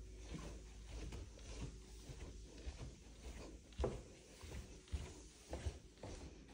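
Footsteps going down a carpeted staircase, soft, evenly paced thuds, with a few louder steps in the second half as the walker reaches the tile floor below.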